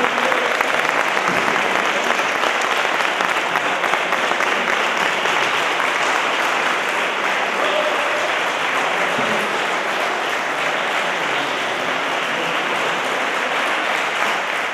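Audience applauding steadily, with a few faint voices calling out over the clapping.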